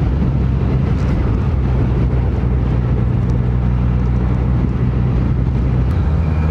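Benelli TNT300's 300 cc parallel-twin engine running at a steady cruise, mixed with wind and road noise.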